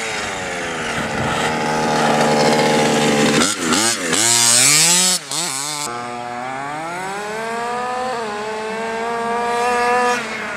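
Small 30.5 cc two-stroke engine of a 1/5 scale RC car running under throttle, its pitch swinging up and down through several quick blips a few seconds in, loudest around the middle. It then settles into a long, slow rise in pitch and drops off near the end.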